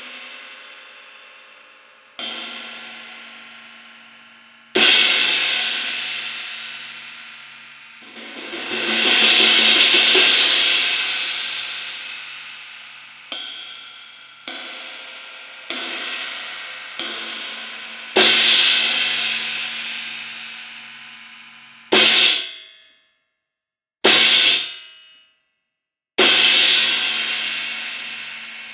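1CorTone YSHS 19-inch dry crash cymbal struck repeatedly at varying strength, most hits left to ring out. About eight seconds in, the sound builds into a swell over a couple of seconds; a run of four lighter hits follows, then loud crashes, two of them choked short before a last crash rings on.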